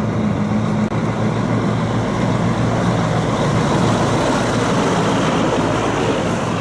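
Diesel engine of a Mack semi-truck tractor running steadily as the truck drives past, with tyre and road noise.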